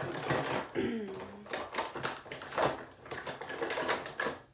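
Makeup containers and cases being rummaged through, clattering and knocking against each other in a quick, irregular run of clicks and rattles.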